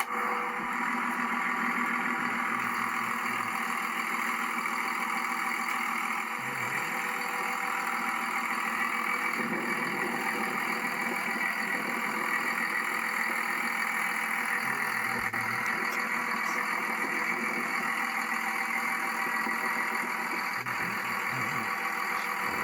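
1998 Dodge Ram 2500's 5.9-litre Cummins inline-six turbo diesel idling steadily.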